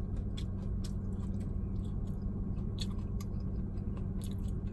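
Close-up chewing of crispy fried chicken wings: irregular small crunches and clicks of the mouth. A steady low hum runs underneath, from the running car with its air conditioning on low.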